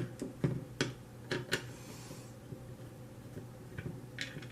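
Light clicks and taps of a screwdriver and small metal parts on a Hi-Point pistol frame as it is taken apart, several sharp clicks in the first second and a half, then only a few faint ones.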